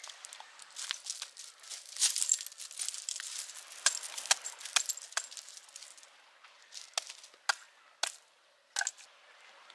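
Camping gear being handled: crinkling and rustling with small sharp clicks and clinks, busy for the first five seconds or so, then a few separate clicks.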